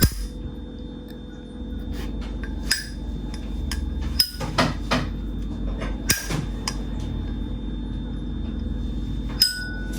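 Vintage Zippo lighter's hinged brass lid being flicked open and snapped shut, about eight sharp metallic clicks spread out, several with a short high ringing ping. A steady low hum runs underneath.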